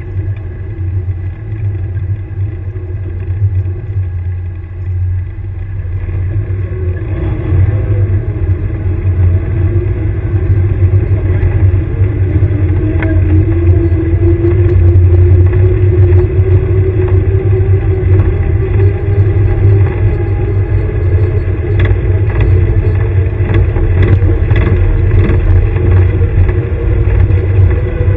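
Engine of an airsoft combat vehicle running with a heavy low rumble as it drives, its note climbing slowly and growing louder about a third of the way in as it picks up speed, with a few knocks and rattles later on.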